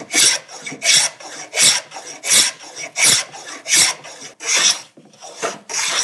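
Wooden moving fillister plane cutting a rabbet along a board edge in short, even strokes, about three every two seconds: each push a rasping hiss of the iron slicing off a curled shaving.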